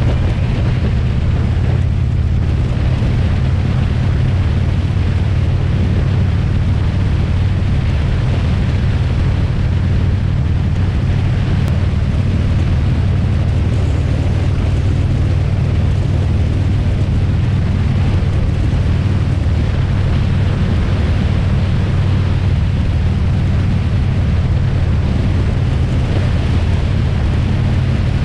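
Motorcycle cruising at a steady highway speed: a constant low engine drone with heavy wind and road noise over it.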